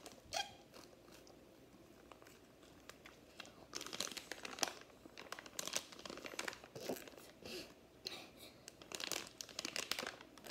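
Paper napkin crinkling and rustling in scattered bursts as it is pressed and rubbed against the mouth, starting a few seconds in.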